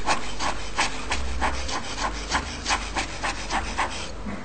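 Rubber bulb air blower squeezed over and over, each squeeze a short puff of air, about three or four a second, stopping about four seconds in. It is blowing dust out of a DSLR's open mount onto the locked-up sensor during sensor cleaning.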